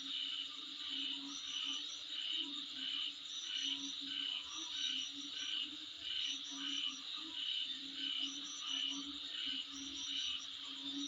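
Insects calling in a steady chorus of short, high chirps repeated evenly about two to three times a second, over a continuous high buzz, with a lower pulsing note beneath.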